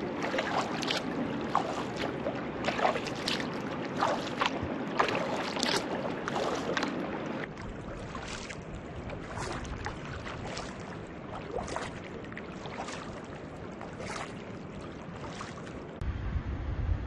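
Kayak paddle strokes on calm water: irregular splashes and drips from the blades, busier in the first half and sparser later.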